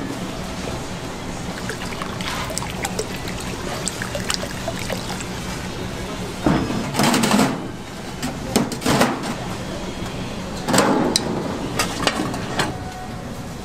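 Broth splashing and sloshing in a stainless-steel steam tray, in short bursts about seven, nine and eleven seconds in, with a few light clicks of metal utensils over a steady hiss.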